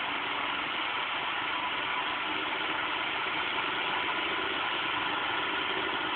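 Homemade Newman motor running on four 9-volt batteries, its magnet rotor spinning in the coil drum and its shaft commutator switching, giving a steady, even mechanical whirr.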